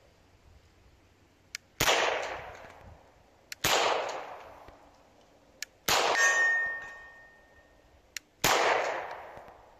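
Four slow, deliberate pistol shots from a .40 S&W CZ P09, about two seconds apart, each echoing away for a second or so, with a faint sharp click just before each shot. After the third shot a steel target rings briefly from a hit.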